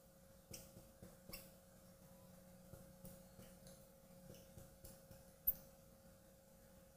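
Marker tip squeaking and tapping on a glass lightboard while writing, a few short sharp squeaks, the loudest about five and a half seconds in, over a faint steady hum.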